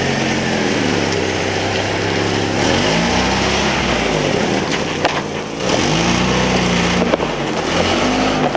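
A truck engine running close by, its pitch rising and falling as it revs up twice and then drops back.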